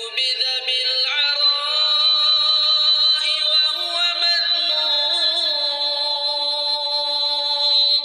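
A male reciter chanting the Quran (tilawah) in a melodic style, holding long notes with ornamented turns and glides.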